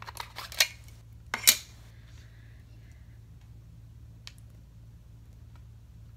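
Small hard makeup items, such as compacts and tubes, clinking and knocking together as they are handled and packed into a makeup bag. There are several sharp knocks in the first second and a half, the loudest about one and a half seconds in, then a single faint click later.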